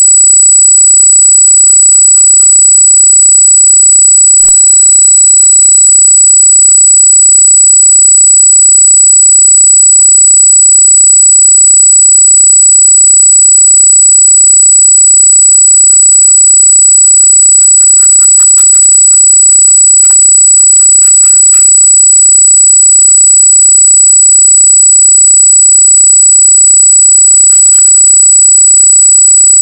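Loud, steady high-pitched electronic squeal of several constant tones on the trail camera's recording, a noise of unknown origin.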